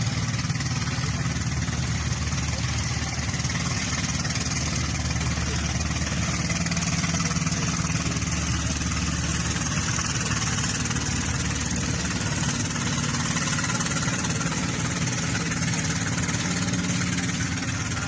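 Boat engine running steadily: an even low hum with some hiss.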